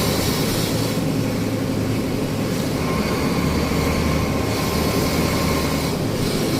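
Truck's diesel engine running steadily, a continuous low drone with no change in pitch.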